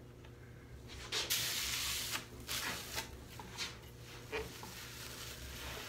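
A rag rubbing over a freshly glued walnut panel, wiping glue squeeze-out off the seam: one long wipe about a second in, then several short strokes.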